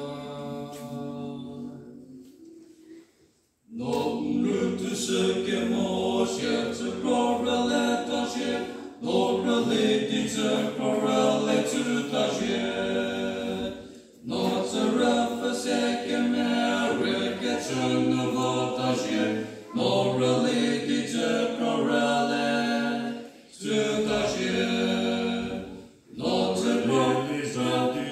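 A male vocal trio singing unaccompanied in harmony, in long held phrases with brief pauses for breath between them. A near-silent pause of a second or two comes before the singing resumes a few seconds in.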